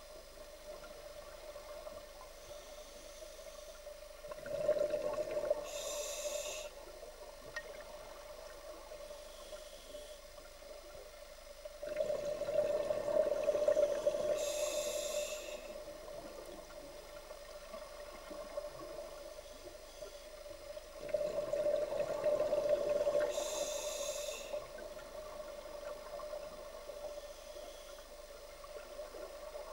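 Scuba diver breathing underwater through a regulator: three breaths about eight to nine seconds apart, each a couple of seconds of bubbling that ends in a short high hiss, over a steady hum.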